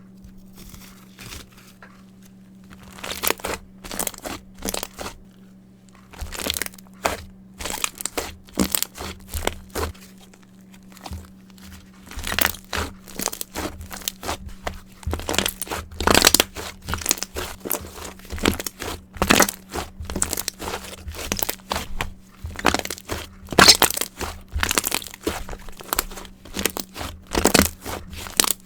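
Mirror slime worked by hand, giving a quick run of sharp sticky pops and crackles, sparse for the first few seconds and then dense. A faint steady low hum lies underneath.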